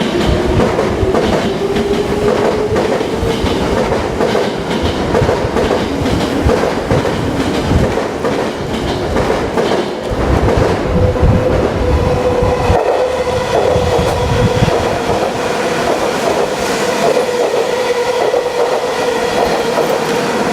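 JR East E351 series limited express electric train running on the track, wheels clicking over the rail joints. A whine rises in pitch over the first ten seconds or so, then holds steady.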